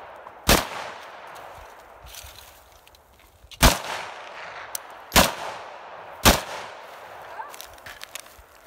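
AK-47 rifle fired four times in single shots, each crack trailing off in an echo. One shot comes about half a second in; after a pause of about three seconds, three more follow a second or so apart.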